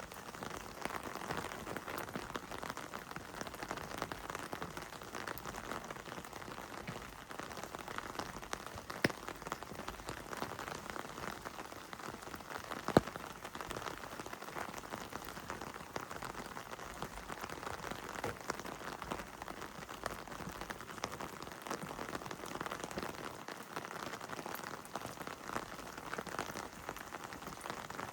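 Heavy rain falling steadily, drops pattering densely on surfaces. Two louder single taps stand out, about nine and thirteen seconds in.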